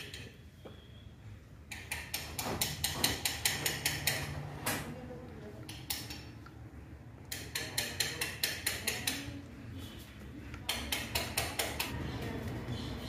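10W-50 synthetic motor oil glugging out of a plastic bottle into a funnel as an engine is refilled after an oil change, in quick regular gulps of about five a second. The gulps come in three runs with short pauses between them.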